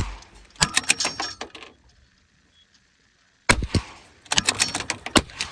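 Bolt-action .22 LR rifle shooting: sharp cracks and clicks in two clusters, one about half a second in and another around three and a half seconds in.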